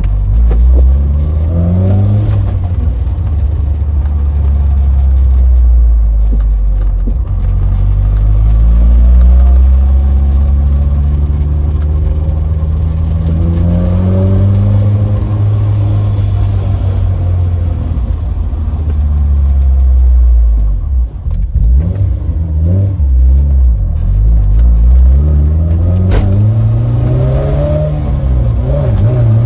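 Honda S2000's four-cylinder engine pulling under acceleration through the catback exhaust, its pitch climbing and then dropping at each gear change, several times over; the car is running and driving again after its no-start fault was fixed.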